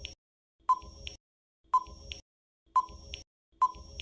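Quiz countdown-timer sound effect: a short electronic beep about once a second, each with a fainter click after it, four times in a row, timing the pause for the answer.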